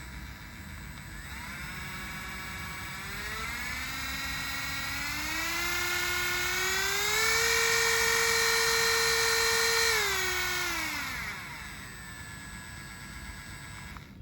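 Worx WX106 cordless drill's motor whining, speeding up in several steps as the trigger is squeezed further. It holds at full speed for about three seconds, then winds down and stops.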